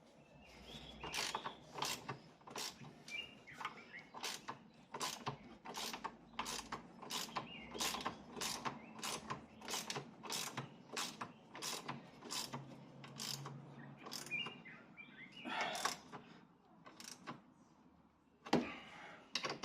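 Ratchet wrench clicking in a steady run of strokes, about two a second, while tightening a nut, then a few more strokes near the end.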